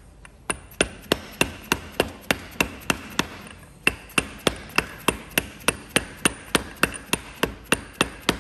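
A plastic-faced mallet tapping on a large socket to drive a new camshaft oil seal squarely into the cylinder head: light, even taps about three a second, with a short pause a little before halfway.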